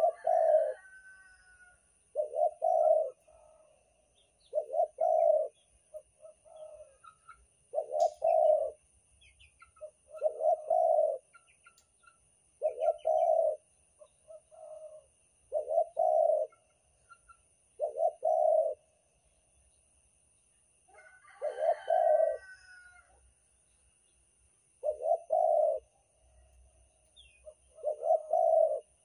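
Spotted dove (derkuku) cooing in the Banten-style song used as a lure call, repeating a short, low, rolling coo phrase about every two to three seconds. Brief higher chirps come twice, near the start and about two-thirds of the way through.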